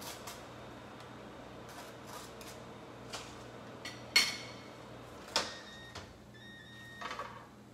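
Kitchen utensils knocking against a frying pan and dishes: a few light taps and scrapes, then a sharp ringing clink about four seconds in, another just after five, and a small rattle of clinks near the end.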